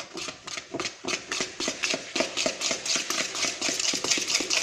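A metal utensil beating desiccated coconut into an egg, sugar and oil batter in a plastic bowl: rapid, even scraping and tapping strokes, several a second.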